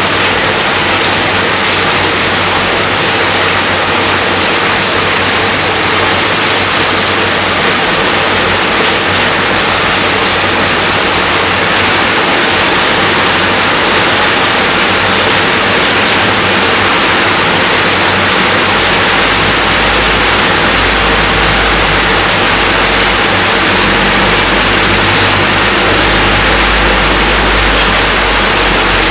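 Steady rainfall, an even, unbroken hiss. A low rumble joins underneath past the middle.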